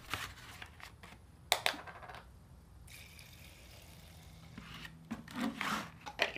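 Liquid degreaser poured from a plastic gallon jug into a plastic jar over a bike chain, a faint steady trickle. It is preceded by a couple of sharp plastic clicks about a second and a half in. Near the end comes the clicking and scraping of the jar's plastic lid being fitted on.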